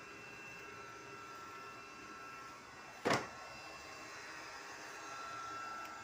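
Robot vacuum cleaner running: a steady whirring hum with a thin high whine, and one sharp knock about halfway through.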